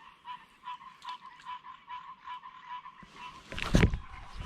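A frog calling in a steady run of short croaks, about three a second. A loud, brief thump or rustle cuts in near the end.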